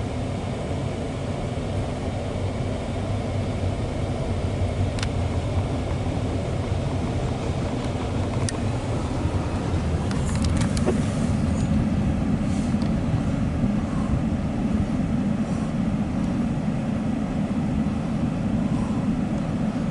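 Loaded coal hopper cars of a long freight train rolling past: a steady low rumble of wheels on rail that grows a little louder about halfway through, with a few sharp high ticks or squeals from the wheels.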